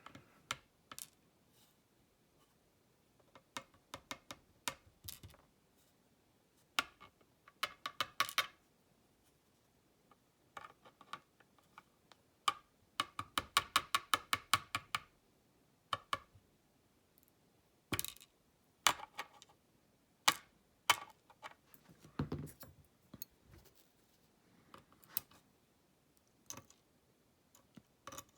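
Small metal parts of a pin-tumbler padlock clicking and tapping as the lock is taken apart by hand: scattered sharp ticks, with quick runs of rapid clicking about eight seconds in and again around thirteen to fifteen seconds in.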